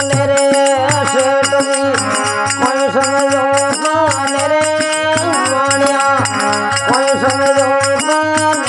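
Rajasthani devotional folk bhajan music: a bending melody line over steady dholak drum strokes and jingling khanjari and manjira.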